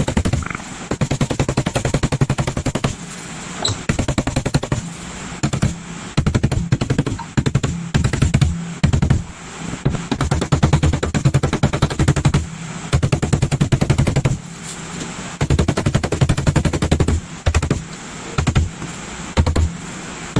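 A power tool rattling rapidly in repeated bursts of about a second, stopping and starting throughout, as body work is done on a car panel.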